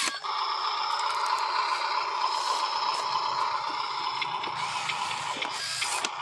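Radio-controlled toy dump truck's small electric motor running with a steady whine, stopping near the end, with light clicks and rattles over it.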